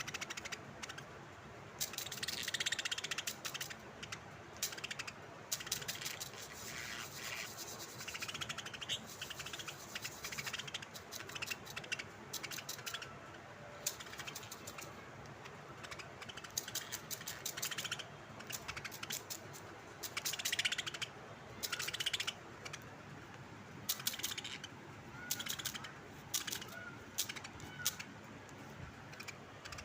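A bird making rapid clicking, rattling calls in repeated bursts, with a few short faint notes between them.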